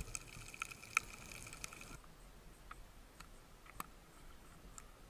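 Underwater sound picked up by an action camera in its housing: scattered sharp clicks and crackle over a faint high whine. About two seconds in this gives way to a quieter background with only a few sparse ticks.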